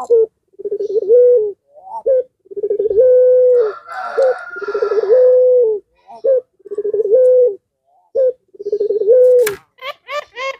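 Ringneck (Barbary) dove of the puter pelung type cooing repeatedly: a short note followed by a long, low, rolling coo that lifts slightly in pitch, about five times over. Near the end a sharp click and a quicker, higher call come in.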